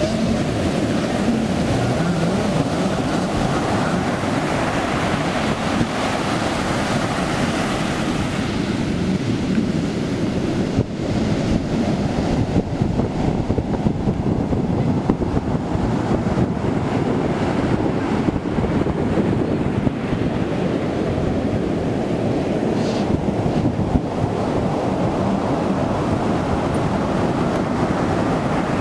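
Heavy surf breaking and washing in, with wind buffeting the microphone.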